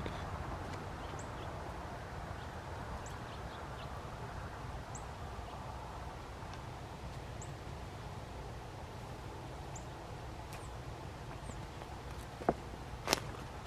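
Outdoor background noise with a small bird giving a short, high chirp every second or two, and two sharp knocks near the end.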